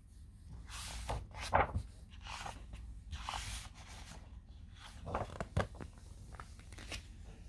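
Pages of a hardcover picture book being turned and handled: soft paper rustles with a few sharper taps, the loudest about a second and a half in and again about five and a half seconds in.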